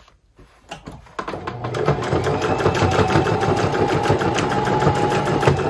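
Domestic sewing machine starting up about a second in, quickly picking up speed and then running steadily, stitching a fabric waistband down over stretched elastic.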